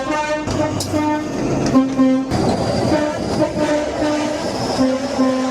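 Train two-tone horn sounding in quick alternating high and low notes. About two seconds in, the sound switches abruptly to another two-tone horn doing the same over the rumble of a moving train.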